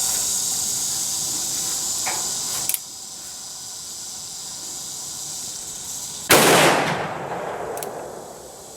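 A single shot from a short-barrelled Ruger Single Seven .327 Federal Magnum single-action revolver firing a hot Federal 100-grain jacketed soft point, about six seconds in, with a ringing decay of about a second and a half.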